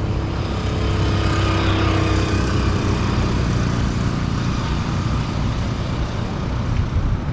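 Road traffic: a motor vehicle engine passing close by, loudest a second or two in, over a steady low rumble of traffic.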